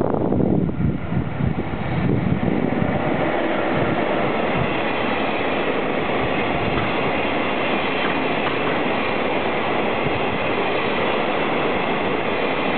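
Freight train wagons rolling past on the rails: a steady rumble of steel wheels on track. It is heavier and lower for the first couple of seconds, then settles into an even roll.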